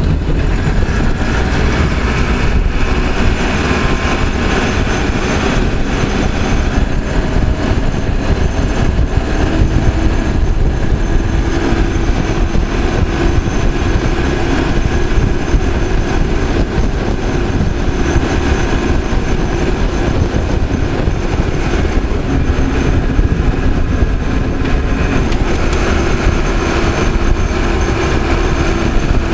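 Caterpillar 416C backhoe loader's diesel engine running steadily under load while driving at speed, a continuous drone with a steady whine that grows stronger about a third of the way in and again near the end.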